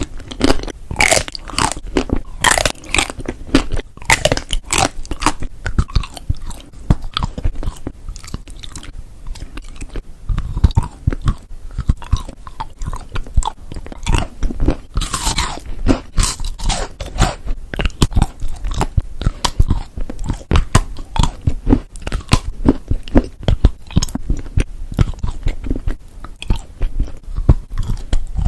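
Close-miked biting and chewing of Dubai chocolate, a chocolate bar filled with pistachio cream and crisp shredded kataifi pastry, giving dense, irregular crunching and crackling.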